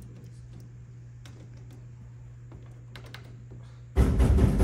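Buttons on a snack vending machine's keypad being pressed: scattered sharp clicks over a steady low hum. About four seconds in, a sudden loud burst of sound cuts in.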